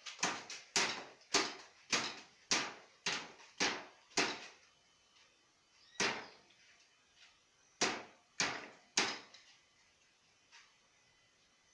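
A series of punches striking plastic water bottles, sharp smacks at about two a second: eight in a row, then a pause, one more, and a final burst of three.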